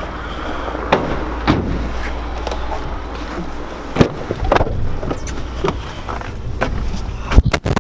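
A vehicle engine idling with a steady low rumble, over which come sharp knocks and clicks of a car door being opened and someone climbing in, with the loudest knocks near the end.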